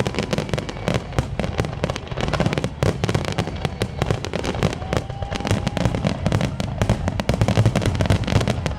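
Aerial fireworks going off in a dense, continuous barrage: many overlapping bangs and crackles with a deep rumble underneath, no pause between them.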